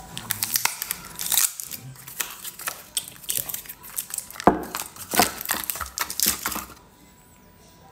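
Plastic wrapping and cardboard packaging crinkling and rustling, with many sharp clicks of small plastic parts being handled, as an electric toothbrush charger is unpacked. It stops near the end.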